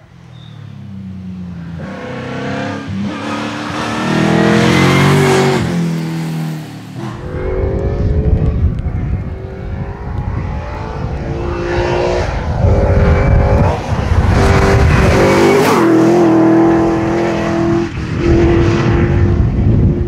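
Rally car engine driven hard through the gears, rising and falling in pitch with a break at each gear change every second or two. It grows louder as the car comes closer, and the note is held high and steady near the end as it passes.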